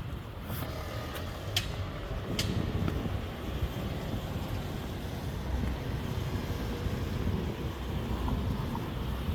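City street traffic: a steady low rumble of passing cars and trucks, with a few sharp clicks in the first few seconds.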